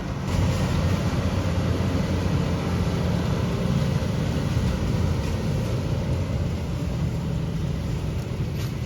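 Grain truck's engine running with a steady low rumble that gets louder just after the start and then holds.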